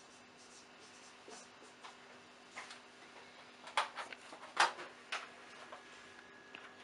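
A few faint strokes of a marker on a whiteboard, then a handful of short, sharp clicks and knocks in the second half as the writer moves away from the board. A low steady hum runs underneath.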